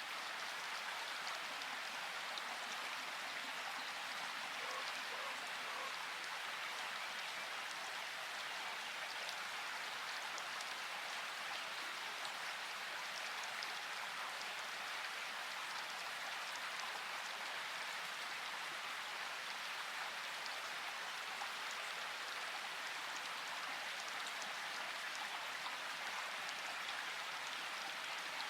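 Steady rain falling: an even hiss of many drops pattering, unchanging in level throughout.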